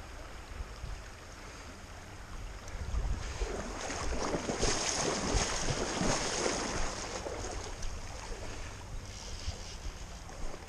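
Shallow creek water running over a riffle, with wind noise on the microphone. It grows louder and rougher from about three to seven seconds in.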